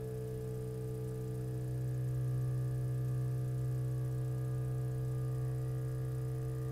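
Mechanical string vibrator humming steadily, driven by a frequency generator at about 63 Hz. It gets slightly louder about two seconds in, as the string starts vibrating in a standing wave near resonance.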